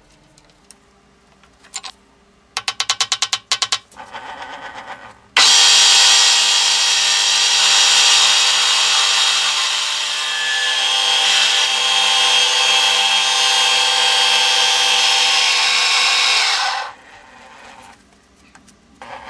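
Milling machine end mill cutting through a pattern-welded Damascus steel ring blank to size its hole: a loud, steady cutting noise over the spindle's steady tone, lasting about eleven seconds and stopping abruptly. A quick run of clicks comes a few seconds before the cut starts.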